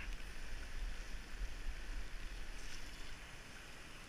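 Wind buffeting the microphone of a bicycle-mounted camera in motion, an uneven low rumble, over a steady hiss of bicycle tyres on wet asphalt.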